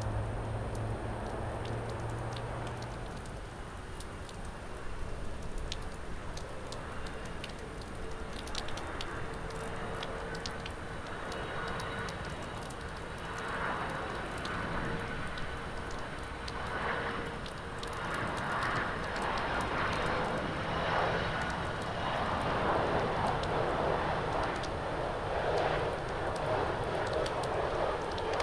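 Jet engines of a Boeing 767 airliner on final approach: a steady whine comes in after a few seconds, and a rushing roar grows louder toward the end as the aircraft nears.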